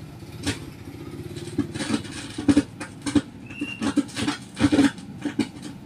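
Crackling and popping from a Konzert amplifier's speaker, coming in irregular bursts, as the pre-driver transistors on the main amplifier board are wiggled one by one. It is the crackle of a suspected loose contact or cold solder joint in the amplifier stage.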